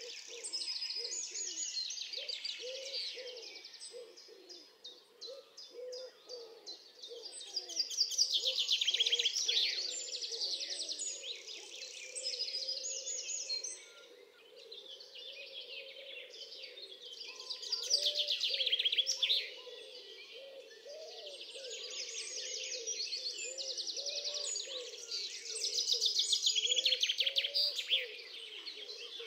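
Songbirds singing: rapid, high chirping trills in phrases of a few seconds, loudest about a third of the way in, around the middle and near the end, over softer, lower warbling notes.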